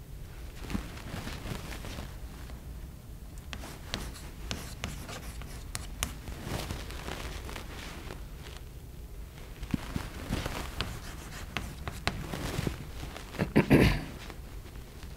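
Chalk writing on a blackboard: taps and scratchy strokes, with a louder knocking clatter near the end.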